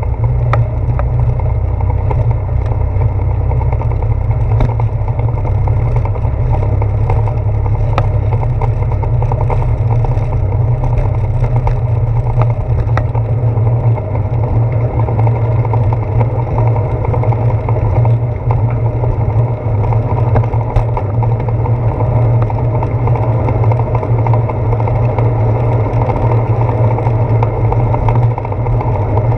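Steady low rumble of a bicycle in motion, made by wind and road vibration picked up through a handlebar-mounted GoPro Hero 4, with scattered small clicks and knocks.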